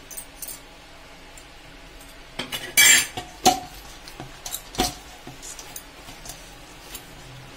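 A stainless steel bowl knocking and clinking as a ball of stiff dough is handled and turned in it by hand. There is a short metallic clatter about three seconds in and a heavier thud near five seconds.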